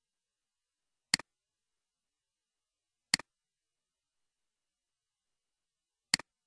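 Three computer mouse clicks, each a sharp press followed at once by a softer release click, about a second, three seconds and six seconds in, over dead silence.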